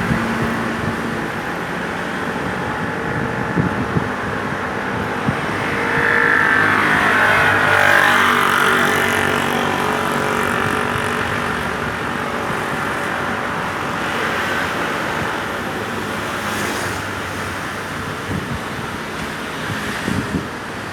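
Road traffic: vehicles running past, with one passing loudest about six to nine seconds in.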